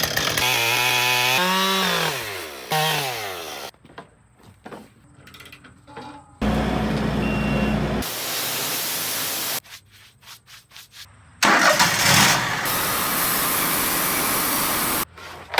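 Chainsaw running at high revs and dropping off, then cutting into a hardwood log in long loud stretches, with abrupt breaks between the segments.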